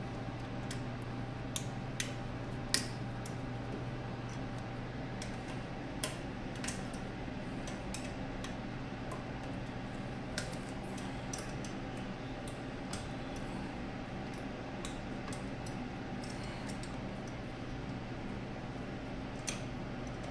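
Steady low electrical hum of running equipment, with irregular light metallic clicks and taps from tools or parts being handled, the sharpest about three seconds in.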